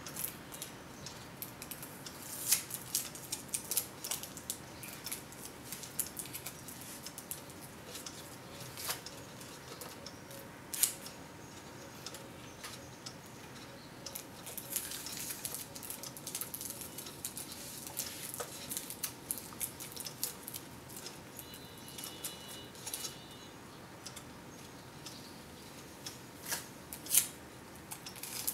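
Hands wrapping sellotape around joined electrical wires: irregular crackling of the tape with sharp little clicks and rustles of the plastic-covered wires being handled.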